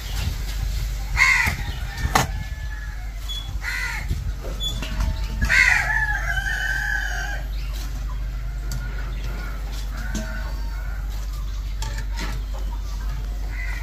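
A rooster crows once, a long call of about two seconds starting about halfway through, with shorter calls near the start.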